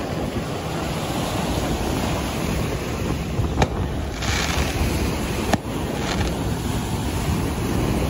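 Small ocean surf breaking and washing up the sand, with wind rumbling on the microphone. Two short sharp clicks about two seconds apart midway through.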